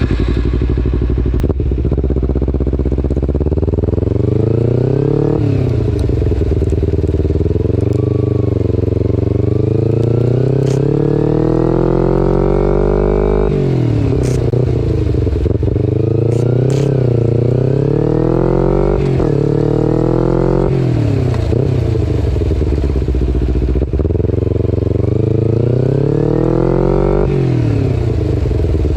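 2011 Kawasaki Ninja 250R's parallel-twin engine through a full Graves race exhaust, revving up through the gears. The note climbs in pitch and drops at each gear change, about five times.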